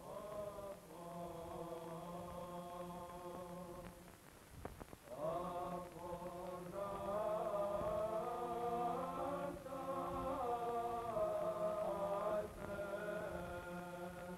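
Byzantine choral chant: voices sing a slow, sustained melody over a steady held drone note (ison). The singing breaks off briefly about four seconds in, then comes back louder.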